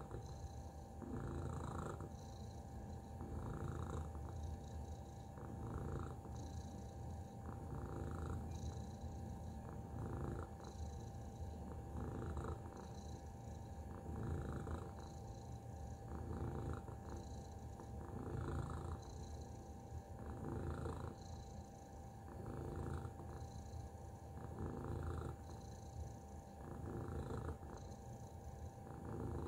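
Domestic tabby cat purring steadily while dozing, the purr swelling and fading with each breath about once a second.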